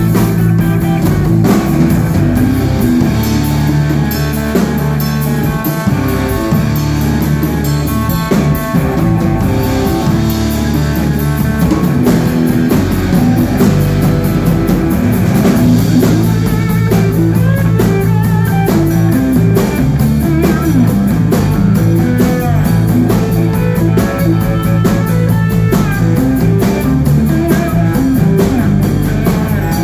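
Live instrumental rock played by a trio: an electric guitar taking the lead over electric bass and a drum kit, loud and steady throughout.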